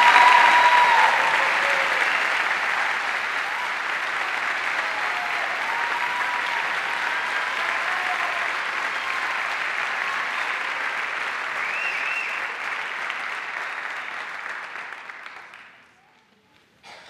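Audience applauding, loudest at the start and dying away about fifteen seconds in, with a few voices among the clapping.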